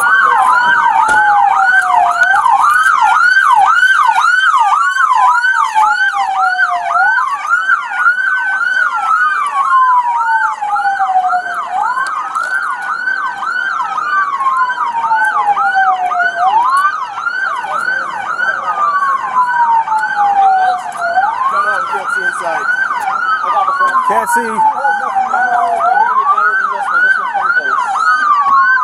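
Two emergency vehicle sirens sounding together: one on a rapid yelp, about two to three sweeps a second, and one on a slower wail that rises quickly and falls over about five seconds.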